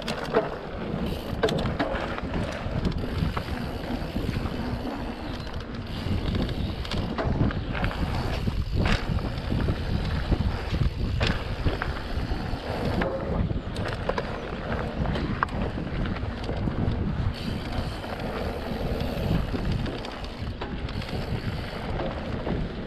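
Mountain bike ridden fast down a dirt forest trail, with wind on the microphone and the brake and gear cable housings knocking against the frame in many short clicks: the frame's cable-port plug has fallen out, leaving the cables loose.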